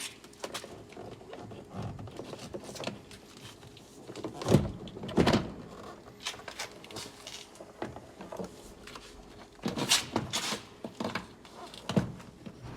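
Irregular plastic clicks and knocks of a car's door trim panel being worked loose from the door, with several louder thunks.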